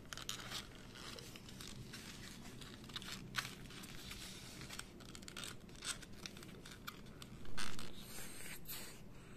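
Foam-board 3D puzzle pieces being handled and pressed into place: scattered light clicks, scrapes and rustles, with a louder rustle lasting about half a second near the end.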